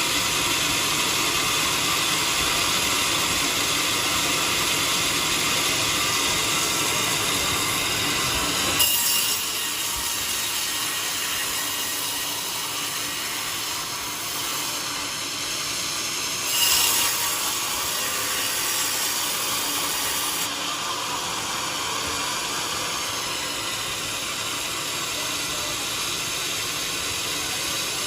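Band sawmill cutting a teak log into planks, the blade and machine running steadily. The sound thins out in the low end about nine seconds in, with brief louder surges then and again about seventeen seconds in.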